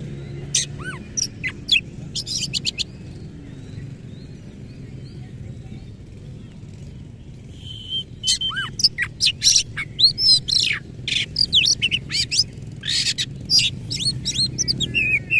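Oriental magpie-robin singing: a quick burst of sharp notes and whistled slides, then a pause of a few seconds, then a long, fast, varied run of sharp calls and whistles.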